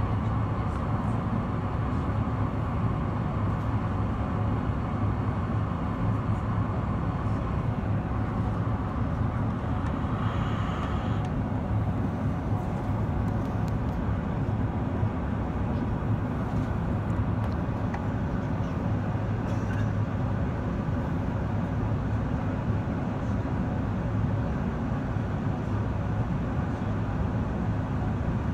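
Steady cabin noise inside an Airbus A380 in flight: a low rumble of airflow and its Engine Alliance GP7200 engines. A faint hum fades out about eight seconds in, and there is a brief higher hiss about ten seconds in.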